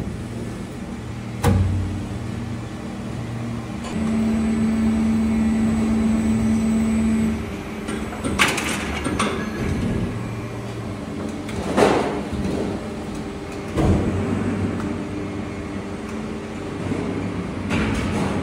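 Injection moulding machine cycling during a mould trial. It hums steadily, with a louder, steadier drone for about three seconds, and makes several sudden clunks and a hiss as the machine and mould move.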